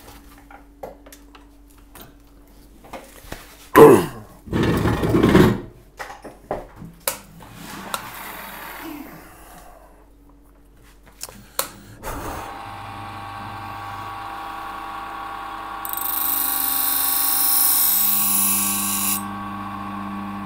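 Knocks and a loud clatter as the grinder is readied, then an electric knife-sharpening grinder starts about twelve seconds in and runs with a steady hum. From about sixteen to nineteen seconds a knife blade is held to it, adding a loud, high grinding hiss, as the edge bevel is ground.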